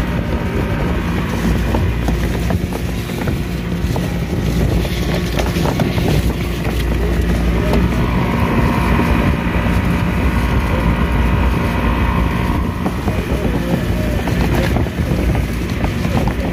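Small fishing boat's engine running steadily, with wind buffeting the microphone. A higher steady tone joins in for a few seconds midway.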